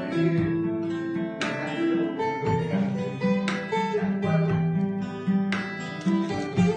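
Music led by acoustic guitar, strummed chords sounding every second or two over a moving bass line.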